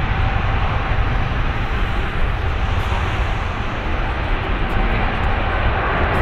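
Boeing 777F freighter's GE90 turbofan engines at takeoff thrust: a loud, steady jet noise with a deep rumble underneath, and a faint whine in the first second or so.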